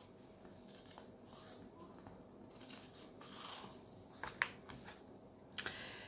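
A picture book's paper page turned by hand: a faint rustle of the page sliding over, then two light taps near the end.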